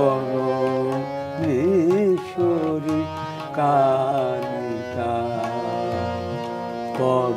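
Elderly man singing a Bengali Shyama Sangeet (devotional song to Kali), drawing out the words "Parameshwari" and "Kalika" in long, ornamented notes. He accompanies himself on a harmonium, with occasional percussion strokes.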